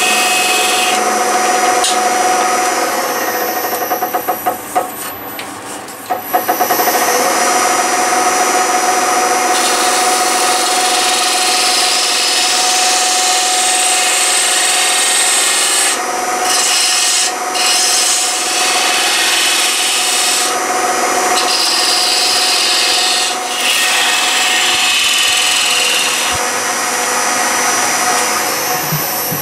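Wood lathe running with a steady hum while a turning tool cuts the spinning ash blank, a continuous rough scraping hiss of shavings coming off. The cutting breaks off briefly a few times when the tool is lifted.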